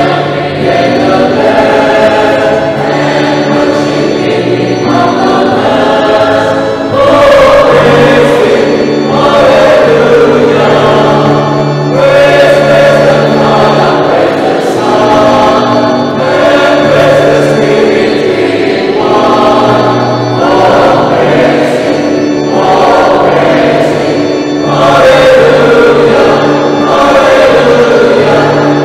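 Mixed choir singing a hymn in unison phrases, accompanied by an electronic keyboard and an acoustic guitar.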